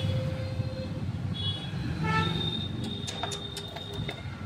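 Steady background traffic rumble, with a vehicle horn tooting briefly about two seconds in. A few light clicks come near the end.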